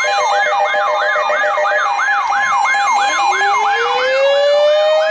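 Electronic siren yelping: a fast, repeating wavering sweep in pitch, about three cycles a second, over steady tones. About three seconds in, a second siren winds up from a low pitch and rises slowly on top of it.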